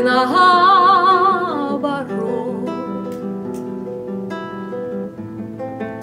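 A woman sings a long held note with wide vibrato over her own classical guitar accompaniment. About two seconds in the voice stops and the guitar plays on alone, plucking notes.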